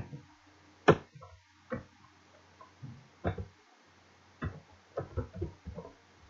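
Computer keyboard keystrokes and mouse clicks: about a dozen sharp, irregular taps, coming closer together over the last second and a half, over a faint steady hum.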